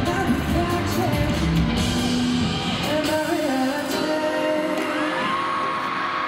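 Live pop song from an arena sound system, with singing from a male vocal group over the backing track. The heavy bass drops away about three seconds in, and a long held sung note follows near the end.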